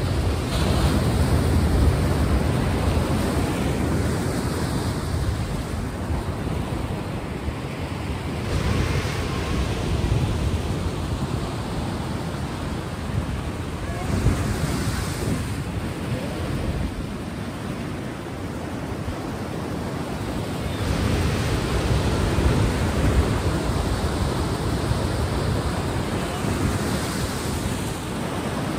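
Ocean waves breaking and washing in, a steady rush of surf that swells and eases every few seconds.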